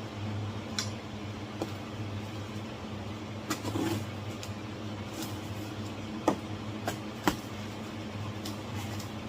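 Scattered clicks and knocks of the metal bow vise parts being handled and fitted together, the sharpest two near the end, over a steady low hum.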